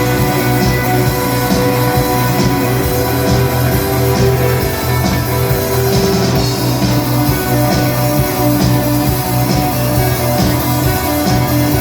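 Instrumental rock music with no singing: held guitar or keyboard notes over a steady bass and drums.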